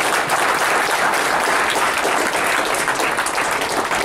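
A room full of students applauding, dense and steady clapping.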